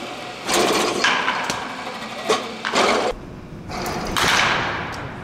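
Baseball batting practice in a netted cage: a wooden bat hitting balls, heard as several sharp cracks and rushes of noise about a second apart.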